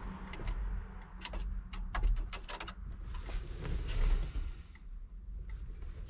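Sharp irregular clicks and rattles of small parts being handled behind the dash, then the turn signal flasher starts ticking evenly, a little more than once a second, near the end. A low steady hum runs underneath.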